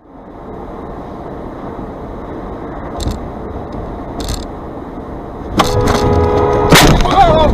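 Steady road noise from a moving car, then a car horn blares about two seconds before the end and is cut off by a loud crash impact. A voice cries out right after.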